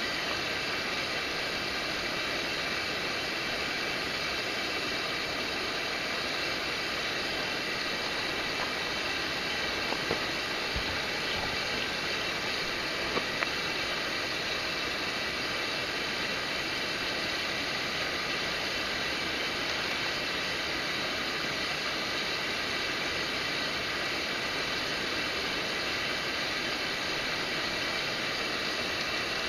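Steady rushing of a mountain stream's flowing water, with a few faint clicks about ten and thirteen seconds in.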